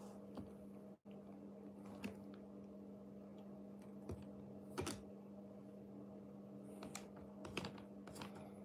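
Sparse, soft crinkles and clicks of plastic as a cat shifts inside a thin plastic bag and mouths a plastic back-scratcher head, about seven small sounds spread irregularly over a steady low hum.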